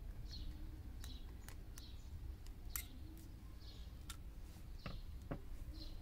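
Light metal clicks of steel pliers gripping and pulling a coil of copper wire open, several scattered taps with one sharper click near the middle. A bird chirps briefly about once a second behind them.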